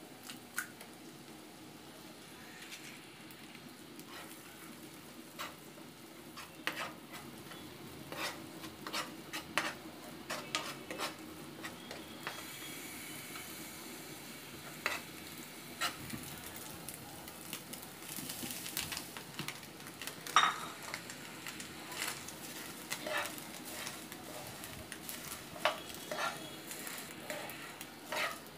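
Egg sizzling in hot oil in a nonstick frying pan, with a metal spoon scraping and tapping against the pan again and again as the egg is broken up and stirred.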